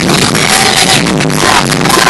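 Loud live pop music from a concert's sound system, heard from within the audience, with a steady dance beat.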